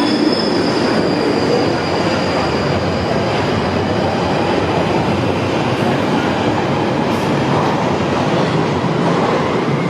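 London Underground Northern line tube train running through the platform with steady, loud rolling and motor noise. A thin high wheel squeal fades out over the first few seconds.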